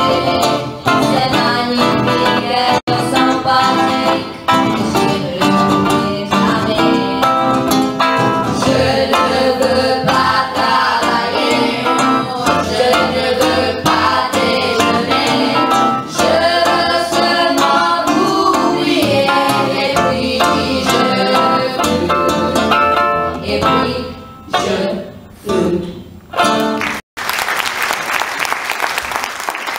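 A small group of women singing together, accompanied by guitar. The song breaks off about three seconds before the end, and a hall's applause follows.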